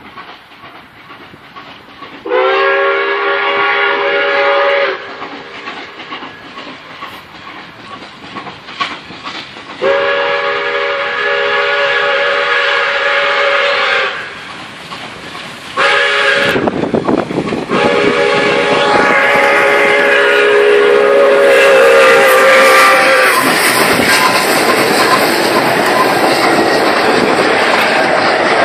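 Pere Marquette 1225, a 2-8-4 Berkshire steam locomotive, blowing its chime whistle in the grade-crossing pattern: long, long, short, long. From the short blast on, the loud exhaust and running noise of the engine and train passing close fill in and carry on to the end.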